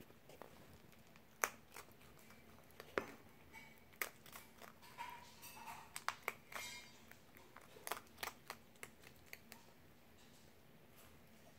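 Fennec fox chewing kibble and mealworms from a stainless steel bowl: sharp, irregular crunching clicks a few times a second, thinning out near the end.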